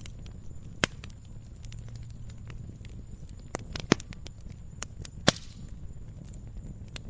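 Firewood burning: a steady low rush of flame with irregular small crackles and three sharp, loud pops of the wood, about a second in, near four seconds and a little past five seconds.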